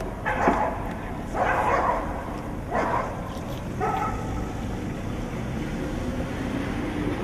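A dog barking four times, about a second apart, then falling quiet about four seconds in, over a steady low background noise.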